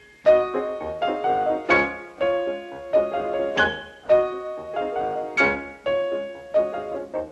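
Solo piano music: a melody of struck notes and chords, about two a second, thinning out near the end.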